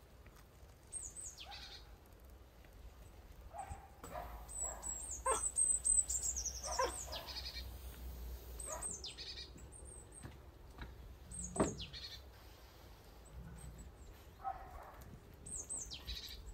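Small birds calling with quick, high chirps that sweep downward, including a rapid falling trill a few seconds in and a sharp call near the end. A few short, lower animal calls sound between them.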